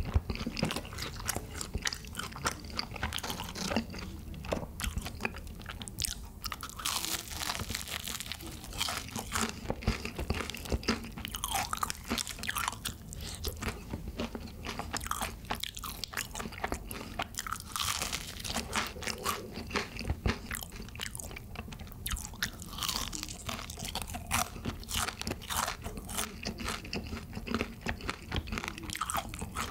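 Close-miked crunching and chewing of crispy seasoned fried chicken (bhc Bburinkle): many sharp, irregular crunches of the coating as it is bitten and chewed, with wet mouth sounds.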